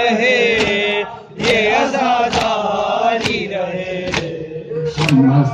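A noha (Shia mourning lament) chanted by men, kept in time by unison chest-beating (matam): sharp hand strikes land about once a second.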